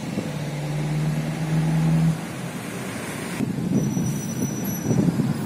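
Engine of a large road vehicle running close by with a steady hum, rising slightly, then falling away abruptly about two seconds in. Lower, irregular traffic rumble follows.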